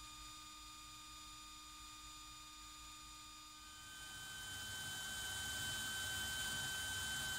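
Cordless drill motor running at a steady speed, spinning the core wires while wrap wire is fed onto them to form a fused Clapton coil. About four seconds in it gets louder, with a higher steady whine.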